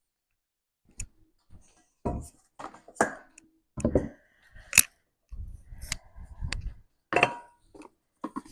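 Hands pinching off and shaping a ball of poori dough: irregular soft knocks, dull thuds and clicks of handling on the work surface, starting about a second in.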